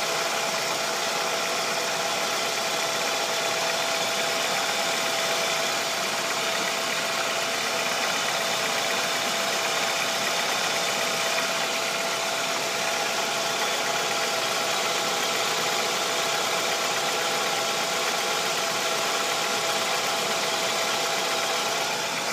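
Car petrol engine idling steadily while warm, with a persistent knock that the owner hears only when the engine is hot and at idle and has not been able to trace.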